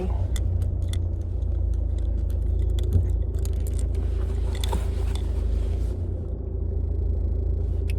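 Car engine idling, heard from inside the cabin as a steady low rumble with a faint hum, while the car sits stationary in a queue. A few irregular light clicks and ticks sound over it.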